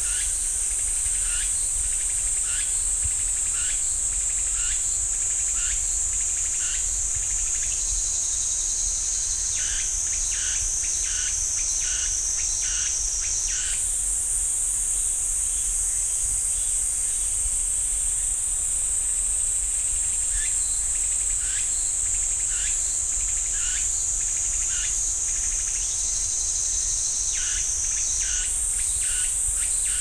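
Cicadas singing: a continuous high-pitched shrill drone, overlaid with a rhythmic series of short pulsing calls. The drone steps abruptly higher about halfway through and again near the end, and the pulsing calls pause for a few seconds in the middle.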